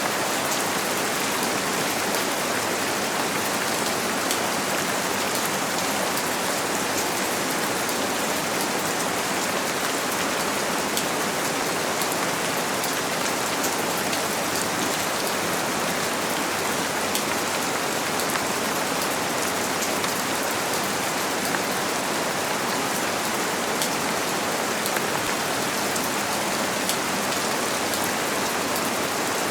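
Steady rain on a window: an even, dense hiss with faint ticks of single drops scattered through it.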